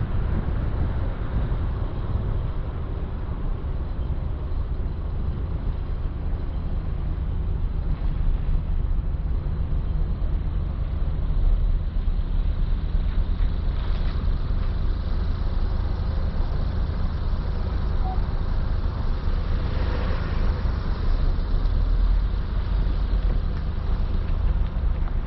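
Car running, heard from inside the cabin: a steady low engine and road rumble, with a brief louder rush of noise about twenty seconds in.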